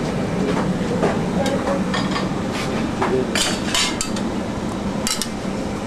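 Metal pans and utensils knocking and clinking on a professional kitchen range several times, over the steady hum of the kitchen's extraction hood.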